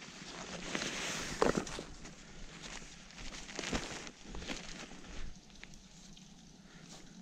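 Close rustling and crunching of gloves, clothing, a fabric game bag and snow as a dead hare is handled, with a few sharp clicks and knocks; loudest about a second or two in.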